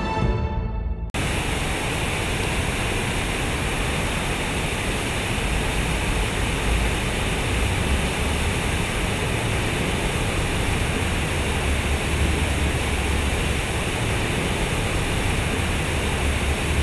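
Large public fountain's water cascading from concrete spouts and splashing into its pool: a steady, loud rush with a low rumble beneath. It cuts in abruptly about a second in, as a stretch of music stops.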